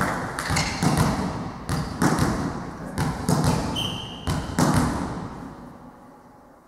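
A volleyball bounced again and again on a sports hall floor before a serve, each thud echoing in the hall, with a short referee's whistle blast about four seconds in. The thuds die away near the end.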